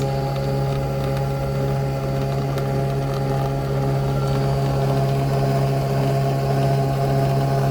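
Nespresso Vertuo coffee machine brewing, its motor spinning the pod inside: a loud, steady hum at one constant pitch.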